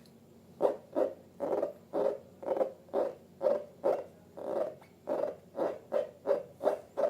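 Rubber balloons squeaking in a quick series of short hoot-like squeaks, about two or three a second, getting slightly faster near the end.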